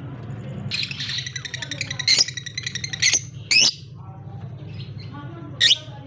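Lovebirds calling: a shrill, buzzy chatter for about two seconds, with sharp, loud squawks cutting through it, three within about a second and a half and another near the end. A steady low hum runs underneath.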